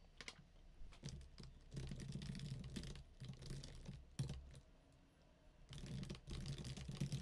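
Typing on a computer keyboard: quick runs of key clicks, with a pause of about a second a little past the middle.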